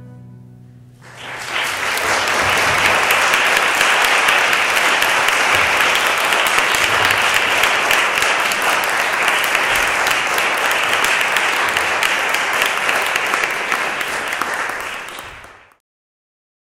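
Audience applauding, starting about a second in as the last note of the music fades. The clapping is steady and cuts off abruptly near the end.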